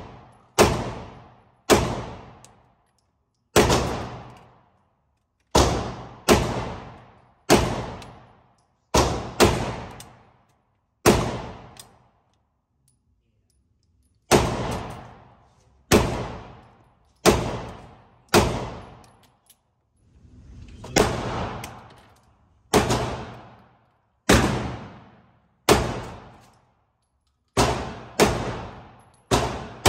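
Gunshots fired one at a time at an uneven pace, about two dozen in all, each a sharp crack that dies away over about a second. There is a pause of about three seconds near the middle.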